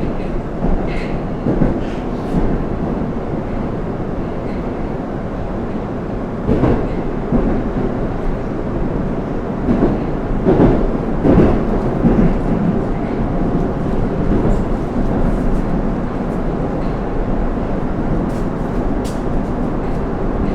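Interior running noise of a Moscow Metro 81-760/761 «Oka» car at speed between stations: a steady rumble with irregular knocks and bumps from the running gear, loudest around the middle.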